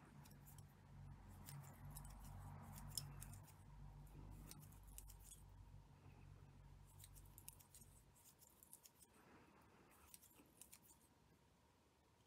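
Near silence with faint scattered clicks and rustles of a plastic tatting shuttle and cotton thread being handled as lace stitches are formed. A low hum runs under it and stops about eight seconds in.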